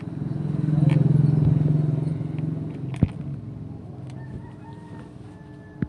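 A low engine hum swells and fades over about two seconds, as of a motor vehicle passing, with a single sharp click about three seconds in.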